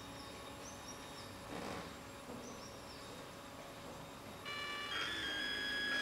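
About four and a half seconds in, a NEMA 17 stepper motor starts up with a whine of several steady high tones. Half a second later the tones step to a new pitch as the motor's speed is adjusted.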